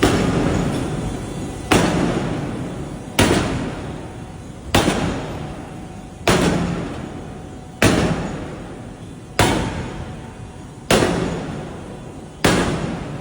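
Forging hammer striking metal: nine heavy blows at an even pace, about one every second and a half, each ringing on and fading before the next.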